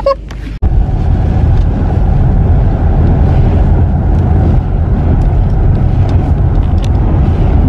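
Steady loud rumble of a car driving on a wet road, heard from inside the cabin; it starts abruptly about half a second in.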